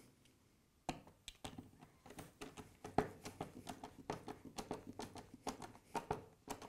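Hand screwdriver driving a screw into a plastic part. From about a second in there is a string of light, irregular clicks and taps, about four a second.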